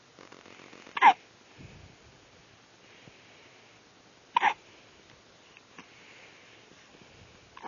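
A baby hiccuping: two short, sharp hiccups about three seconds apart, each a quick squeak that drops in pitch, with a third starting right at the end.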